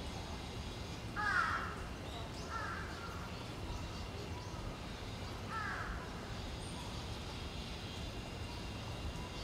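A bird calls three times: short calls about a second in, near three seconds, and near six seconds, over a steady low background rumble.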